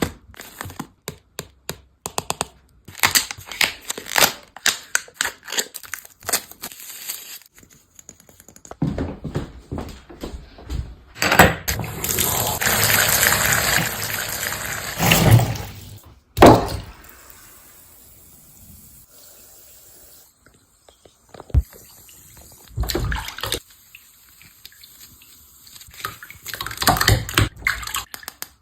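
Packaging and stationery being handled and unwrapped by hand: a run of clicks, taps and crinkles, a longer stretch of rustling in the middle, and a sharp knock about sixteen seconds in.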